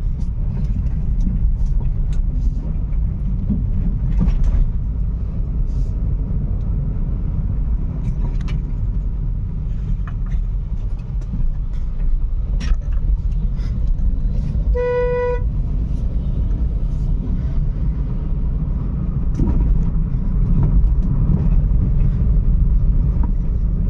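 Volkswagen car driving at speed, heard from inside: a steady low rumble of engine and road noise. A car horn toots once, briefly, about fifteen seconds in.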